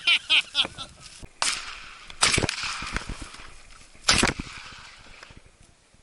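Three shotgun shots, the first about one and a half seconds in, the second under a second later, and the third about four seconds in. Each is sharp and dies away over about a second as it echoes across open hill country.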